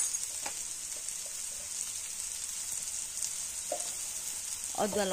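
Chopped onions frying in hot mustard oil in a pan: a steady high sizzle, with a couple of faint clicks.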